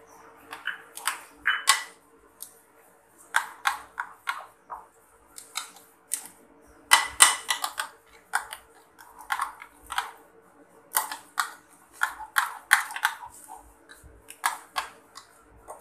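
Metal spoon scraping and clinking against a ceramic bowl as a thick spice paste is stirred, in irregular bursts of sharp clicks and scrapes, over a faint steady hum.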